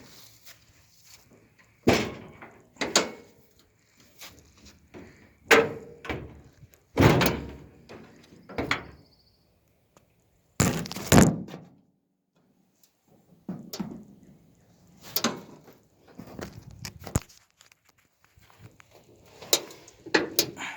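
Pickup truck doors being handled and shut: a series of heavy thunks and knocks, about a dozen spread irregularly over the stretch, with the loudest in the first half.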